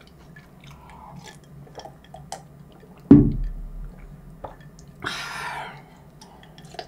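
A person drinking ice water from a glass mug at close range: small clicks of ice against the glass, a loud low gulp about three seconds in, and a short airy rush of breath about five seconds in.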